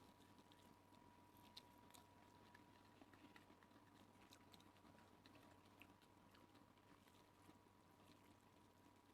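Near silence with faint, scattered small clicks from someone eating, over a faint steady tone.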